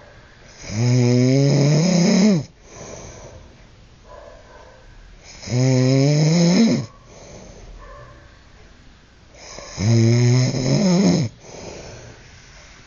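A man snoring loudly in his sleep: three long snores about four seconds apart, each rising in pitch and cutting off sharply, with quieter breathing between them.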